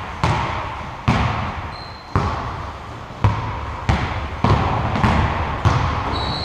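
A basketball being dribbled on a gym floor: about nine bounces, coming quicker in the second half, each one echoing in the hall.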